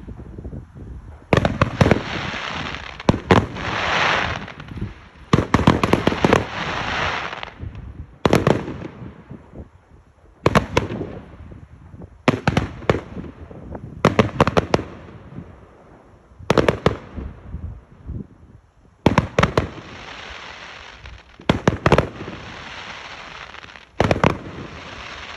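Fireworks display: shells going off in quick clusters of sharp bangs, some followed by a few seconds of crackling hiss.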